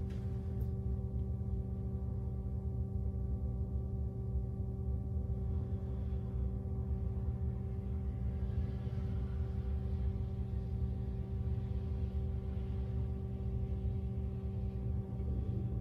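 Steady hum made of several held tones over a low rumble, unchanging throughout.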